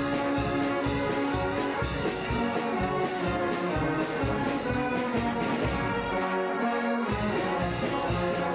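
Brass band music: a march with brass and a steady drum beat.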